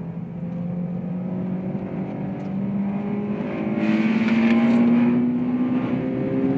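Honda S2000's four-cylinder engine heard from inside the cabin, pulling hard in one gear with its pitch rising slowly and steadily. It is loudest a little past the middle.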